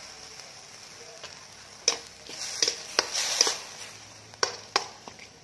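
Minced beef and tomato paste sizzling faintly in a stainless steel wok on low heat. From about two seconds in, a slotted metal spatula clacks and scrapes against the pan several times as the meat is stirred.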